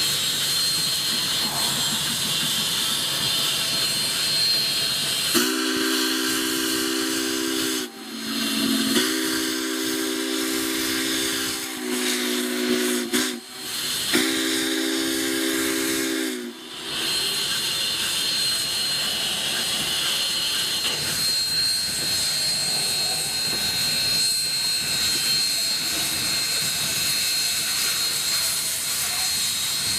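Steam whistle of Union Pacific 4-8-4 No. 844 sounding a chord of several tones in four blasts, long, long, short, long: the grade-crossing signal. A steady rushing noise runs underneath.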